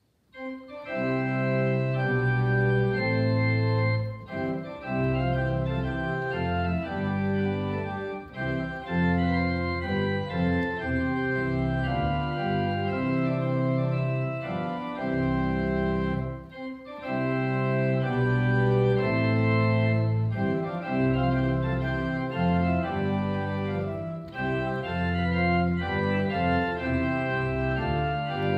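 Organ played with long held chords over deep bass notes, starting up from silence at the very beginning. The phrases break off briefly every few seconds before the next chord.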